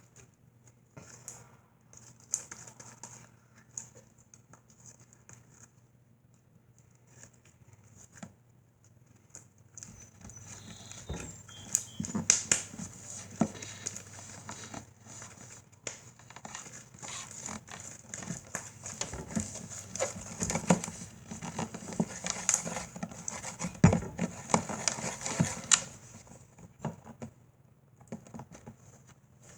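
Slime being squeezed and worked by hand, giving quick sticky clicks and pops. The clicking is sparse at first, then turns rapid and busy about a third of the way in before thinning out near the end.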